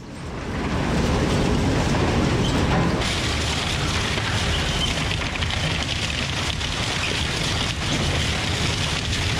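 Steady industrial machine noise, heavy in the low end, fading in over the first second, with a brighter hiss added about three seconds in.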